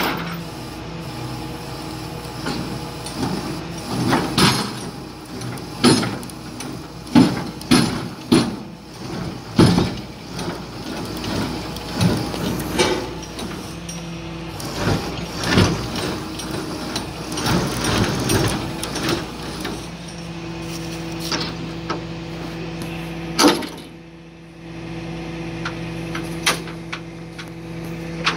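Tilt-and-load flatbed tow truck pulling a 20 ft steel shipping container up onto its tilted bed: the truck's engine and winch run steadily under frequent clanks and bangs of steel on steel. A steadier pitched hum sets in about two-thirds of the way through.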